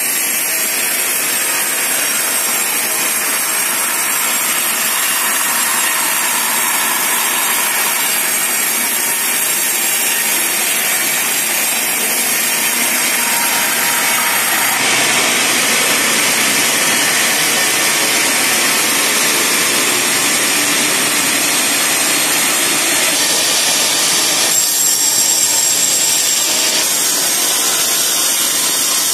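Sawmill band saw cutting lengthwise through a log, a loud continuous sawing noise whose tone shifts abruptly about halfway through and again near the end.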